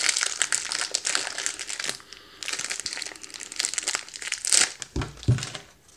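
Foil ration packet crinkling and rustling in bursts as it is handled and biscuits are taken out, with a brief low sound near the end.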